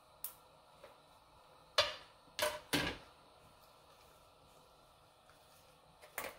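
A few short plastic clicks and crinkles as zip-top bags and a plastic clip are handled at the rim of a stainless-steel sous vide water bath. There is one click just after the start, a louder cluster of three about two seconds in, and one more near the end.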